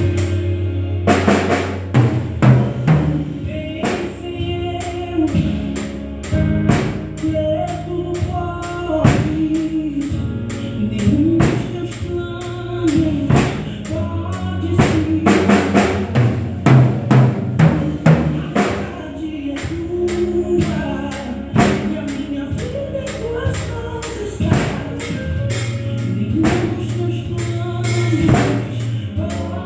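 Live gospel band music with a drum kit prominent: steady kick, snare and cymbal hits over bass and other instruments.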